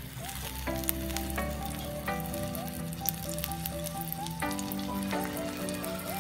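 Korean egg roll frying in hot oil in a pan: a steady sizzle with fine crackles, over background music of held notes that change about every second.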